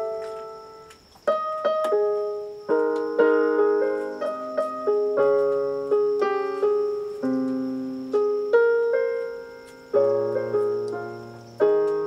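Piano playing a slow series of chords, each struck and left to ring and fade, with a low bass note under some of them: the chord progression for a pop-song chorus being worked out.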